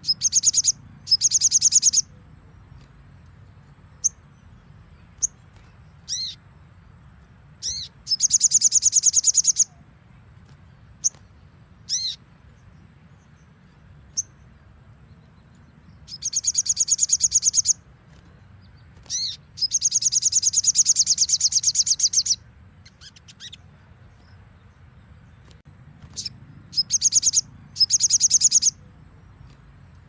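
Little spiderhunter (sogon) singing. It gives long, very fast trills of high notes, each lasting one to three seconds, with single sharp down-slurred chirps between them.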